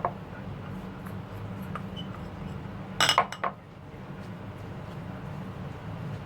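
Kitchen utensils and dishes clinking: one click at the start, then a quick cluster of three or four louder clinks about halfway through, over a steady low hum.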